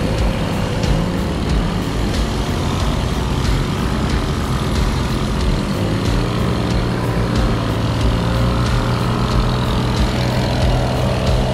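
Two-stroke moped engine running steadily, its pitch wavering a little.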